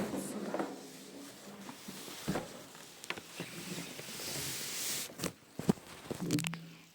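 Rustling and handling noise as an air fryer and its packaging are unpacked. A brief swell of rustling comes about two-thirds of the way through, then several sharp clicks and knocks of plastic parts near the end.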